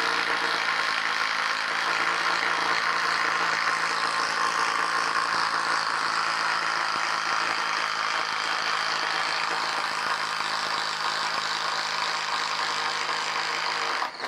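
DeWalt DCF809 Atomic compact impact driver hammering steadily under load as it bores a 1¼-inch speed bore bit into a wooden beam. It stops abruptly at the very end.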